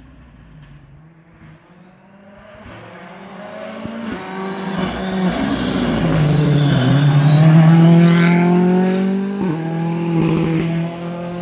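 Rally car coming up the stage and passing, its engine revving hard with several gear changes. It grows louder to a peak about eight seconds in, then starts to draw away.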